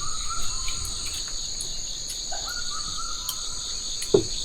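Steady chorus of shrilling insects, a high pulsing drone, with a fainter intermittent higher-pitched call coming and going. Near the end, a couple of sharp clicks.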